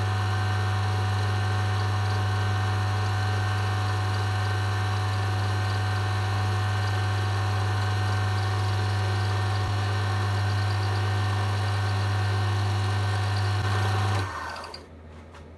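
Small wood lathe running steadily with a strong low hum and a high whine. It is switched off about fourteen seconds in, cuts out suddenly and winds down within a second.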